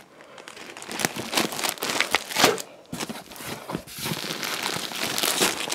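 Clear plastic bags around bundles of yarn skeins crinkling as they are handled and shifted in a cardboard box. The crinkling starts about a second in and goes on in irregular rustles.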